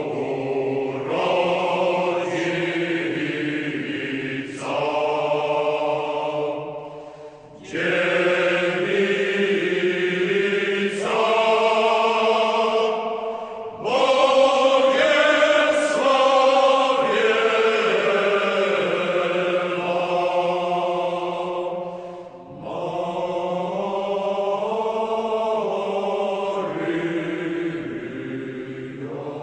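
Choral chanting: several voices sing long held notes together, in phrases several seconds long with short breaks between them.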